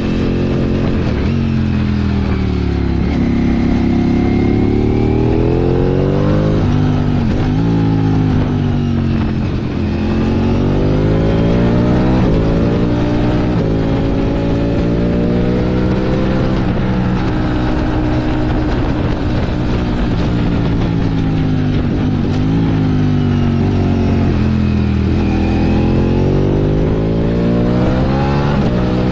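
Motorcycle engine pulling hard on a winding road, its revs climbing over several seconds and then dropping back as the rider rolls off, over and over.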